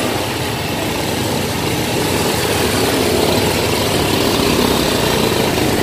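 A motor vehicle's engine running steadily under an even rushing noise.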